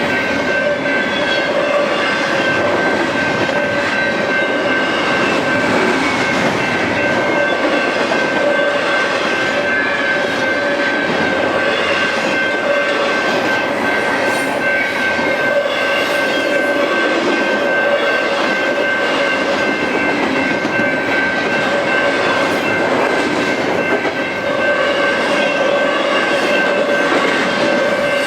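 BNSF freight train rolling past close by: a steady loud rumble and clatter of wheels on rail, with a steady high ringing tone over it.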